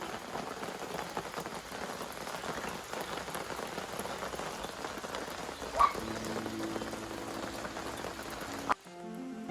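Steady rain falling, an even hiss of drops. A short high squeak about six seconds in, and acoustic guitar music starts near the end.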